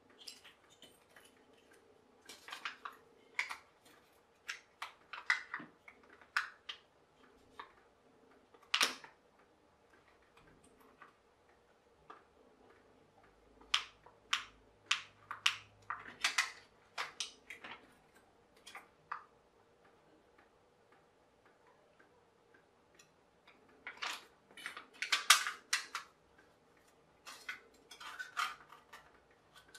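Irregular clicks, taps and crinkles of thin aluminium drinks-can metal being worked by hand with small tools: a pointed pick, then pliers bending the edges of the can-metal dome. The loudest cluster of crinkles comes a little past two-thirds of the way through.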